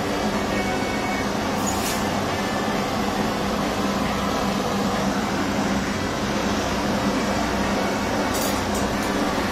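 Hand-held jeweller's gas torch burning with a steady rushing flame while a metal ring is heated, over a steady low hum. A few faint light clicks about two seconds in and again near the end.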